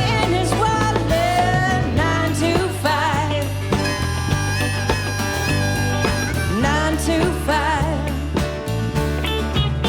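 Live country-rock band playing an instrumental break, with drums, bass and a wavering lead melody line over a steady beat.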